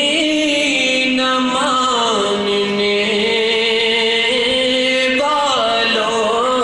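A man singing an Urdu naat, a devotional poem in praise of the Prophet, with long held notes and slow ornamented turns of pitch; a new phrase sets in a little after the middle.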